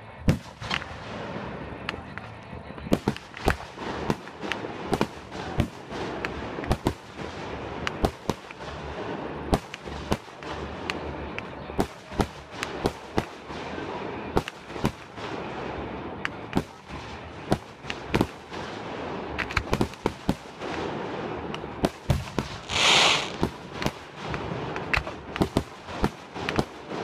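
Fireworks display: aerial shells bursting in a rapid, irregular series of sharp bangs over a continuous wash of noise, with a loud hiss lasting about a second near the end.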